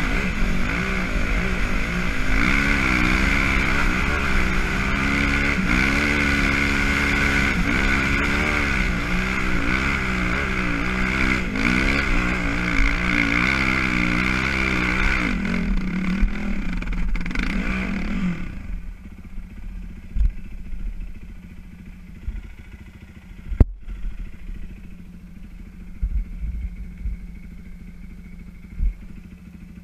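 Enduro motorcycle engine revving up and down as the bike climbs a dirt and sand track. About eighteen seconds in the engine note falls away, leaving a low rumble with scattered knocks and one sharp click.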